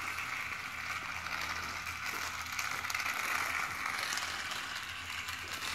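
Battery-powered toy car running along a flexible plastic track: a steady small-motor whir with a fast, fine rattle from the wheels over the track segments.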